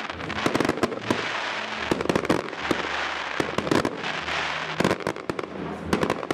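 Aerial fireworks shells bursting overhead: a dense, irregular run of sharp bangs and pops, several a second, some in quick clusters.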